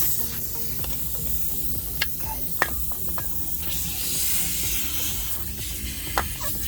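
Music under a steady hiss, with three short sharp clicks.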